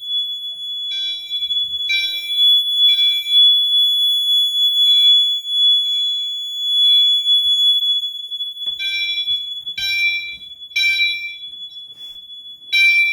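Fire alarm horns sounding the temporal-three evacuation pattern: three blasts about a second apart, then a pause, repeating. A continuous high-pitched alarm tone runs underneath, the appliances on the system sounding out of sync with one another.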